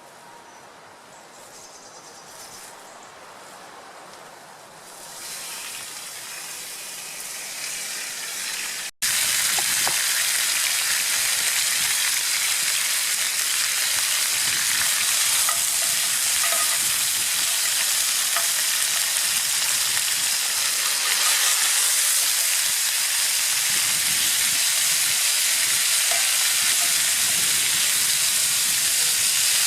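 Beef frying in a hot cast iron skillet on campfire coals: a sizzle. It is softer for the first few seconds, grows about five seconds in, and after a sudden break near nine seconds in becomes a loud, steady sizzle.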